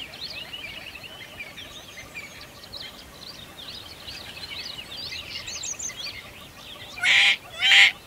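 Small birds chirping and twittering over and over, then two loud, harsh bird squawks in quick succession about seven seconds in.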